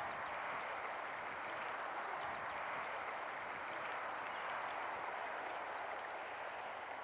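Steady rushing of flowing river water, with a few faint high chirps.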